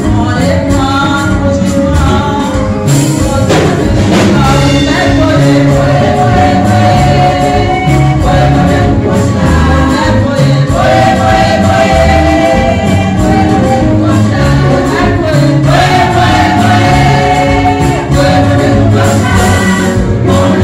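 A women's gospel choir singing through a PA system, holding long notes in unison over a steady bass line and percussion, with a tambourine in the mix.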